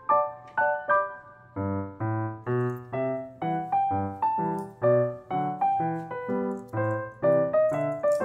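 Background piano music: a light melody of struck notes, about two a second, with lower accompanying notes coming in about one and a half seconds in.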